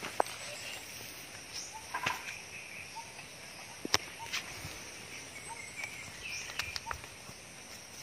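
A few sharp clicks and taps over a quiet outdoor background, with short faint chirps scattered through.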